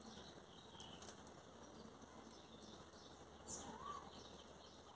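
Near silence: faint outdoor background hiss, with a faint click and one short chirp about three and a half seconds in.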